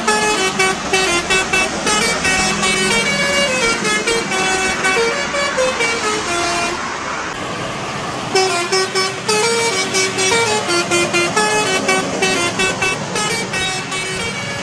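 A bus's multi-tone telolet horn playing a quick tune of short stepped notes, pausing for about a second roughly halfway through before the tune starts again.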